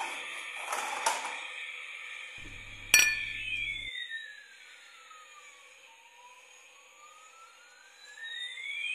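Electronic sound effect from a battery-powered plastic toy: a slow siren-like tone that sweeps down and back up, over a steady high electronic tone. There is plastic rattling around the first second and a sharp plastic click about three seconds in as a toy is handled.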